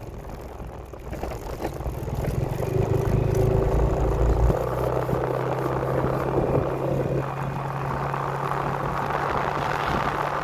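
An engine running, getting louder over the first three seconds and then holding a steady hum.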